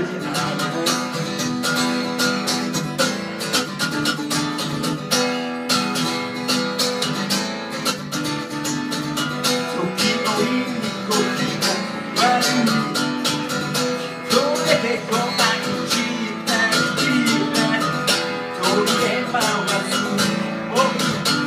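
A strummed acoustic guitar with a man singing along into a microphone.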